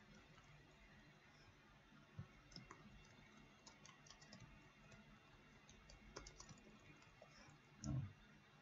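Faint computer-keyboard typing: keys clicking in short, uneven runs. A louder dull thump comes near the end.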